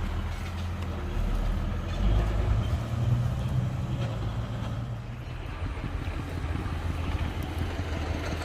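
Heavy earthmoving machine's diesel engine running steadily, working harder about two seconds in, with its pitch rising, then easing back around five seconds.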